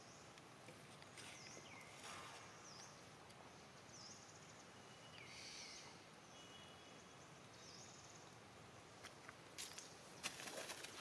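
Quiet outdoor background with small birds giving a few short, high chirps every second or two. Near the end come a run of sharp clicks and rustling.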